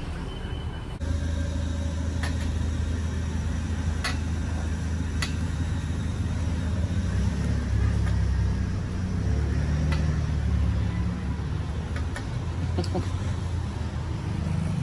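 Steady low rumble that starts abruptly about a second in, with a few faint sharp clicks.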